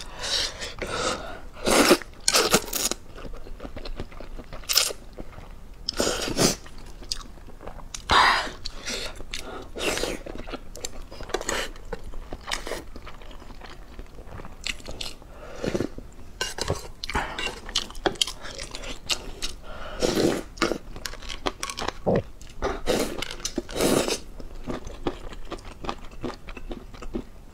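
Close-miked eating sounds: a person chewing noodles and sipping or slurping spicy broth from a ladle, in irregular bursts every second or so, some of them loud.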